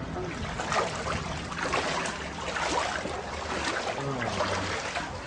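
Wellington boots wading through shallow floodwater on a house floor, the water sloshing and splashing unevenly with each step.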